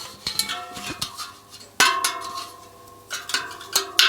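Sharp metallic clinks and knocks as the finished bicycle wheel and metal workshop tools are handled, the loudest about two seconds in and another near the end, each followed by a ringing of several steady tones.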